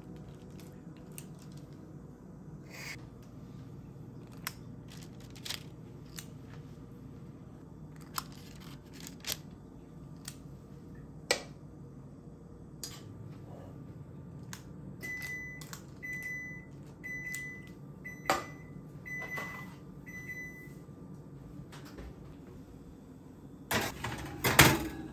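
Clicks of a spring-lever cookie scoop and soft knocks as dough is portioned onto a baking sheet. Midway an oven beeps about six times, about one short beep a second. Near the end a metal baking tray clatters loudly as it is slid onto the oven rack.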